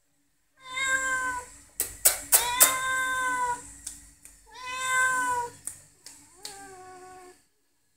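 A cat meowing four times, each meow about a second long, the last one lower in pitch. A few sharp clicks come about two seconds in.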